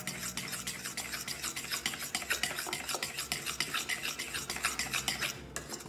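Pancake batter being stirred briskly in a glass bowl: a utensil scraping and clicking against the glass in quick, even strokes, several a second.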